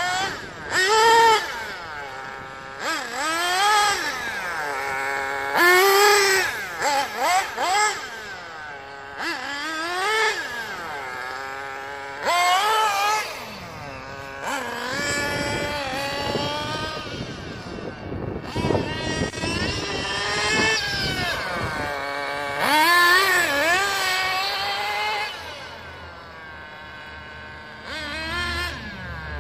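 Losi 8IGHT nitro RC buggy's engine revving, a high-pitched whine that climbs and falls in pitch with repeated bursts of throttle as the buggy runs up and down the street, geared with a 14-tooth clutch bell.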